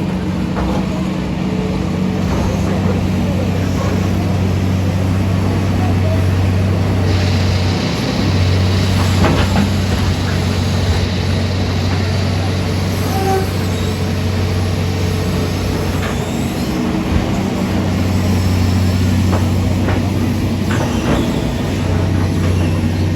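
Heavy diesel engine, of the kind on demolition machinery, running steadily with a constant low hum, and a harsher hissing noise over it for several seconds in the middle.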